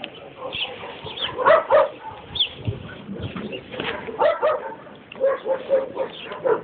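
A dog whining in short, pitched calls, several in quick succession about a second and a half in, around four seconds in and again near the end.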